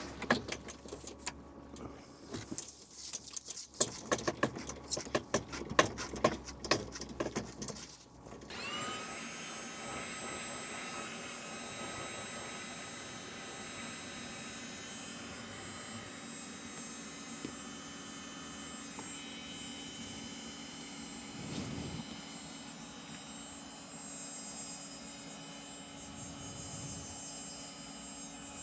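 Irregular clicks and knocks of handling for about eight seconds, then an electric heat gun is switched on, its fan spinning up with a rising whine and then running with a steady whir, heating the PEX tubing.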